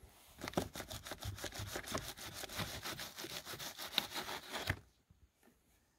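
BMW F30 exterior side mirror being shaken and pulled off the door: a rapid, irregular rattling and knocking of the mirror assembly against its mount, which stops suddenly about four and a half seconds in.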